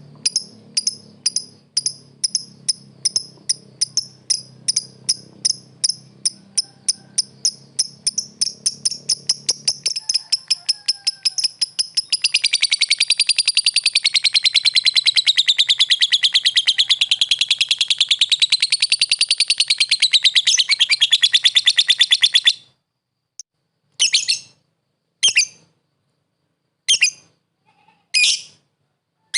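Lovebird calling: sharp, high chirps repeat faster and faster, then run together about halfway through into a long, rapid chattering trill that wavers up and down in pitch for about ten seconds. The trill stops abruptly, and single chirps follow every second or two.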